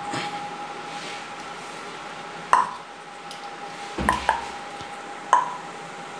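A few short, sharp knocks with a brief ring, one about two and a half seconds in, a quick pair around four seconds and one more past five seconds, over a faint steady hum.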